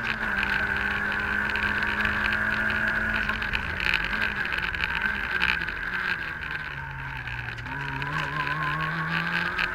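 Citroën AX GTi Group N rally car's engine heard from inside the cabin at stage pace. The revs hold, then sink slowly over a few seconds as the car comes off the throttle, and climb again near the end as it accelerates. A steady high whine runs underneath, with a couple of sharp knocks from the road in the middle.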